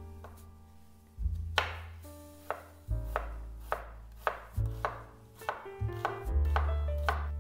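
Chef's knife chopping an onion on a wooden cutting board: a string of sharp knife strikes that come faster in the second half, about three a second. Background music plays underneath.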